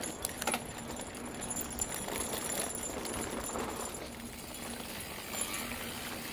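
Mountain bike rolling over a rough dirt trail: steady tyre noise with the bike's chain and parts jingling and rattling, and a sharp click about half a second in.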